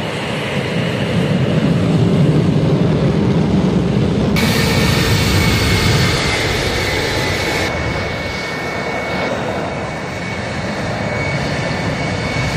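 Sukhoi Flanker-type twin-engine fighter jet in flight, heard from an onboard camera: a steady, loud rush of engine and airflow noise. Its tone changes abruptly about four seconds in and again about eight seconds in, with a thin steady whine running through the later part.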